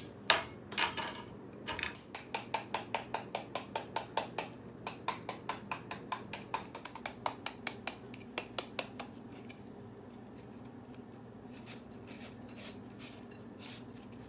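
Knife blade repeatedly chopping into a whole green mango held in the hand, shredding it: a quick run of crisp taps, about three a second, growing fainter after about nine seconds. A couple of louder knocks come near the start.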